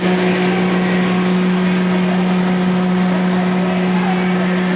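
32-inch sawdust powder machine (wood pulverizer) running steadily, with a constant low hum under an even rushing noise.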